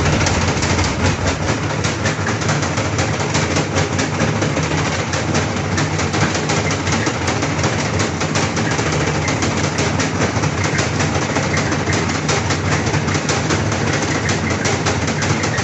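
A machine running loudly and steadily, with a dense, continuous rattle of clicks over a low hum.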